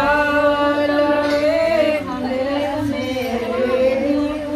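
Women singing a devotional bhajan together, drawing out long held notes with a short break about two seconds in.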